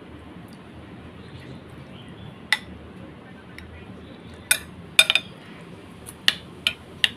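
Metal spoon clinking against a ceramic bowl: about seven sharp clinks, irregularly spaced, most of them in the second half.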